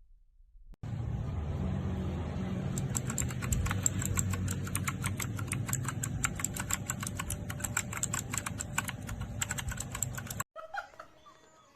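Fast typing on a Tsunami MK-61 60% mechanical keyboard with Outemu switches: a dense, continuous run of key clicks that starts just under a second in and stops suddenly near the end.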